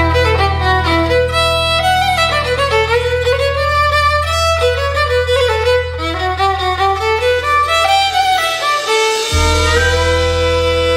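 Instrumental folk-rock music: a fiddle plays a quick melody over a held low bass note. The bass drops out briefly about eight and a half seconds in, then comes back.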